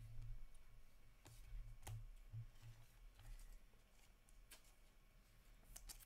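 Faint handling of 2022-23 Upper Deck Series 1 hockey cards: a handful of light clicks and rustles as a card is worked into a clear plastic sleeve, with a low rumble from hands on the table now and then.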